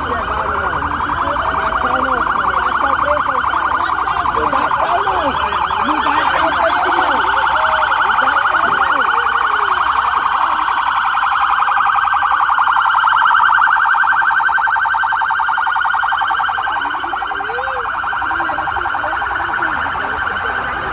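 Police siren sounding steadily in a fast warble, with people talking underneath.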